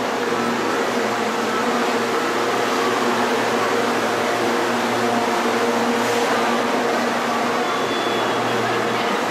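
Steady machine hum with a rushing, air-like noise, holding even throughout.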